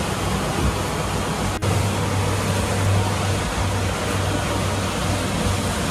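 Suzuki 175 outboard motor running steadily at speed, a low hum under a constant rush of wind and spray from the planing hull. The sound drops out for an instant about a second and a half in.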